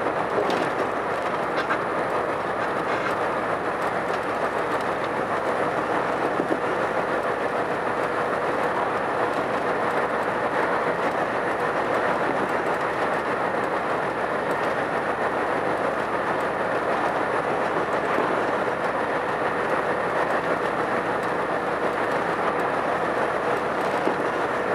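Lorry cruising at steady speed, heard from inside the cab: an even rumble of engine and tyres on the road, with a faint constant tone running through it.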